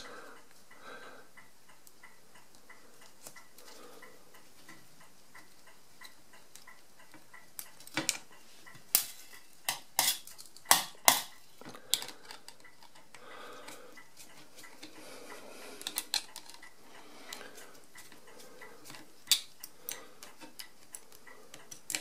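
Small metallic clicks and clinks of a screwdriver working screws out of the spring-loaded end plate of an Odhner 239 pinwheel calculator's result register, with a loose screw clinking onto a stainless steel tray. The sharp clinks come in scattered runs, thickest from about 8 to 12 seconds in, with a few more around 16 and 19 seconds.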